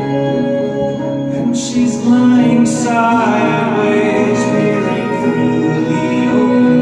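Live band music played loud over a club PA: held keyboard chords with electric guitar and a voice singing.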